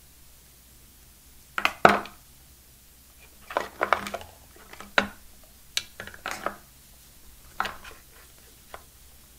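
Small hard plastic clicks and taps as wired USB-C earphones and their cable are handled and lifted out of a phone box, about ten sharp ones in small clusters, the loudest pair about two seconds in.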